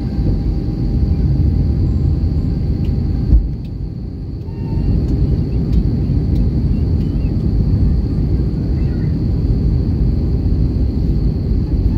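Steady low rumble of engine and airflow noise inside an Airbus A321 cabin during the approach, with a faint high whine over it. About three and a half seconds in there is a short knock, and the noise dips for about a second before it returns.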